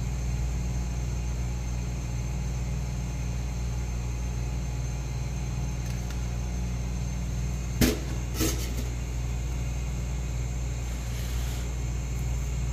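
Steady low hum and rumble of commercial kitchen equipment running, with two short knocks a little past the middle.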